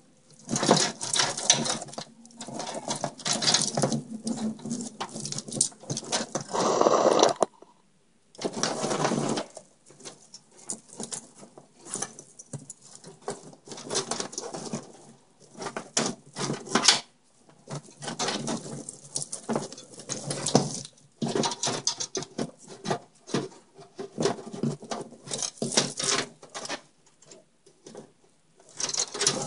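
Cables and plastic being handled: irregular rustling, crinkling and small clicks, with a couple of louder stretches of rustling about six to nine seconds in.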